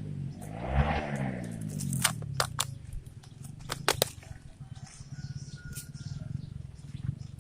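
An engine revving up and back down near the start, then running at a low, steadily pulsing idle, with a run of sharp clicks and knocks about two to four seconds in.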